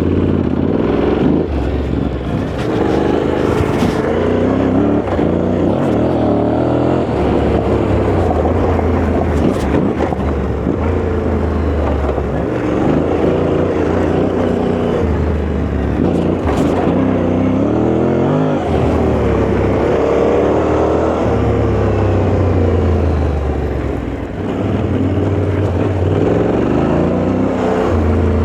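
Yamaha Ténéré 700's parallel-twin engine running under way off-road, revving up and easing off again and again, with a few sharp knocks.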